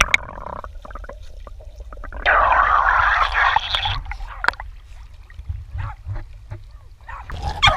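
A rush of water lasting nearly two seconds near the middle, over steady wind rumble on the microphone, with scattered small clicks.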